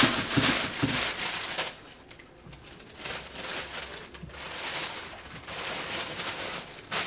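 Thin plastic shopping bag rustling and crinkling as clothes are packed into it. The rustle is loudest in the first second and a half, then comes back as softer, intermittent crinkles.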